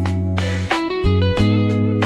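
Background music: an instrumental passage with guitar over a steady bass line.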